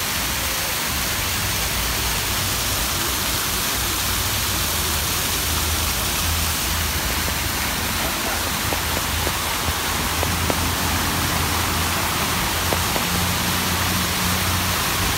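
Tiered fountain's water falling from its bowl and splashing steadily into the basin, an even rushing hiss with a low rumble underneath.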